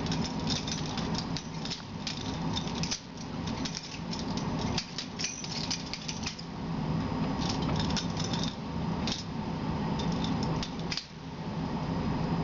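Balisong (butterfly knife) being flipped through a trick routine: quick metallic clicks and rattles as the handles swing around and strike, coming in irregular runs with short pauses.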